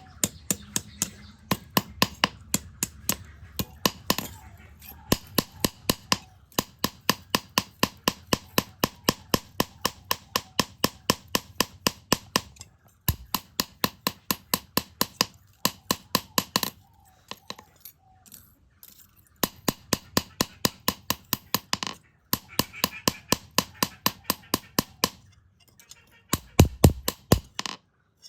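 Hammer striking steel on an anvil in quick, even blows, about three to four a second, with a few short pauses between runs.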